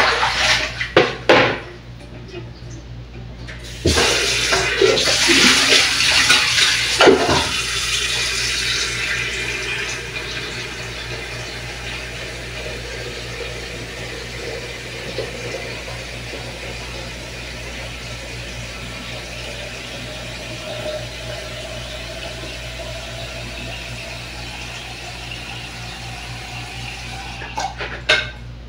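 Kitchen faucet running into the sink: the water comes on about four seconds in, splashing loudly at first, then settling into a steady rush. A few knocks of dishes and a plastic basin being handled come near the start.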